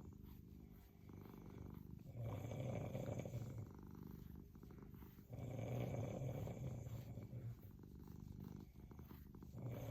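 Domestic cat purring, with a sleeping person's snoring mixed in. The sound swells and eases in slow waves, louder about two seconds in, again past the middle, and once more near the end.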